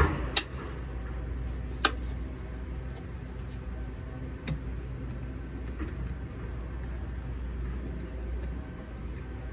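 Sharp clicks and knocks of hand work on a soffit-mounted flood-light fixture: three stand out in the first five seconds, over a steady low rumble.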